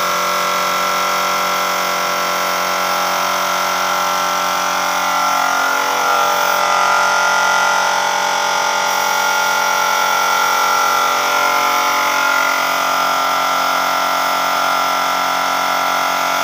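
Portable electric air compressor running with a steady, loud machine hum that starts and cuts off abruptly.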